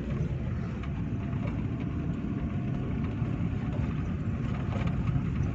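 Steady low rumble of a car driving along a road: engine and tyre noise with no sudden events.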